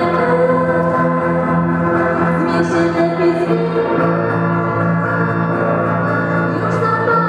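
Live song played through a PA by a small band: a girl singing into a microphone over electric guitars and keyboard, with long held chords.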